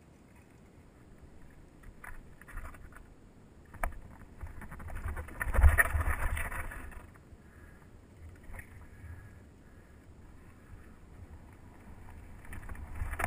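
Mountain bike descending a rocky trail: tyres and frame rattling over the rocks, with a few sharp knocks and a louder stretch of rattling and low rumble about five to seven seconds in.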